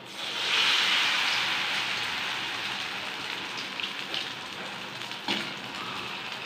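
Hot oil in a steel kadai sizzling as a batter-dipped potato bread roll is lowered in: the sizzle jumps up within the first second, then eases to a steady frying hiss. A short tap about five seconds in.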